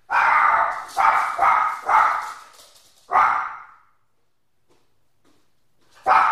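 A dog barking loudly: five barks in the first three seconds, a pause, then one more bark near the end.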